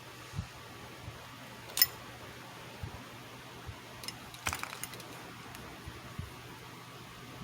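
Scattered clicks and taps of small hard objects being handled, over a steady low hum and hiss. The sharpest click comes about two seconds in, and a quick cluster of clicks about four and a half seconds in.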